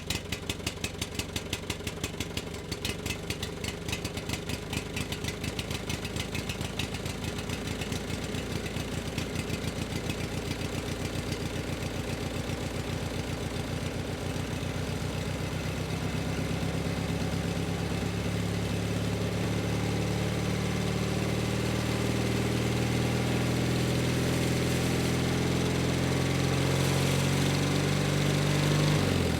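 An engine running with distinct, evenly spaced firing beats that gradually quicken and merge into a smooth, steady hum, rising slowly in pitch and loudness. Right at the end the pitch drops sharply.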